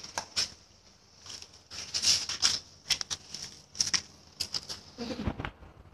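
A heap of thousands of matchsticks burning, the match heads flaring with irregular fizzing crackles in clusters. A duller thump comes a little after five seconds in.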